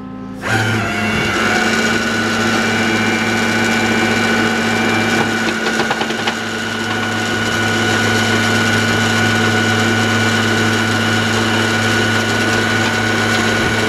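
Flatbed tow truck's PTO-driven hydraulic winch reeling in its cable to pull a car up the bed. It makes a steady whine over the truck engine's hum, starting about half a second in.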